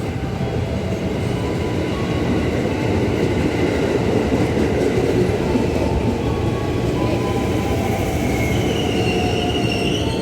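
Ex-JR East 205 series electric commuter train running on the rails with a steady rumble of wheels and motors, growing a little louder toward the middle. High-pitched wheel squeal comes in near the end.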